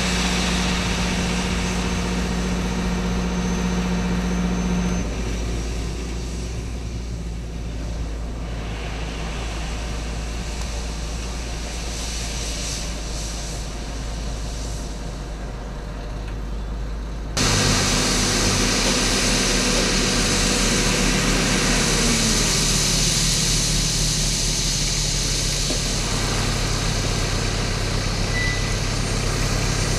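Diesel engines of Bell articulated dump trucks running at raised revs while tipping iron ore, the steady engine note dropping about five seconds in. Just past halfway a louder truck engine cuts in, its revs falling away a few seconds later and settling to a steady run.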